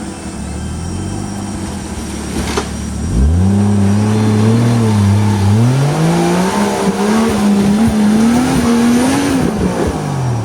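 Off-road 4x4 vehicle's engine revving. The revs climb about three seconds in, rise again around six seconds, then drop back near the end. There is a sharp knock about two and a half seconds in, and light crackling under the engine during the high revs.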